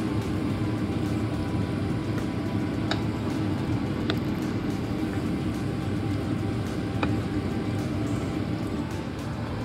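Steady low rumbling noise of the kitchen with a few light clicks, about three, four and seven seconds in, of a spoon against the pan as creamy pasta is stirred.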